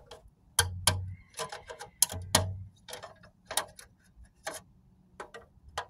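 Irregular clicks and knocks from hands working at a car's front wheel and its plastic wheel cover, a few landing as dull thumps.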